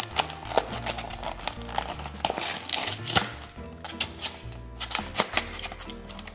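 Cardboard box of a trading card collection torn open and its plastic blister tray pulled out, with sharp crinkles, rips and clicks. Background music with a steady bass line plays throughout.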